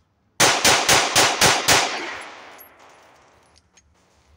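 Six rapid pistol shots in about a second and a half, a Bill Drill string, with echo fading away afterward.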